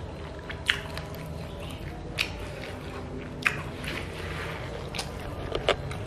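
Close-miked chewing of chicken feet with red chili, with about five sharp mouth clicks spaced a second or so apart over a steady low hum.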